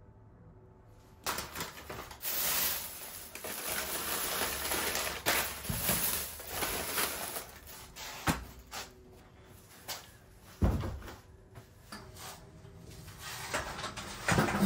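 Brown paper bag rustling as it is handled, starting about a second in, with a few sharp knocks against a plastic seed tray.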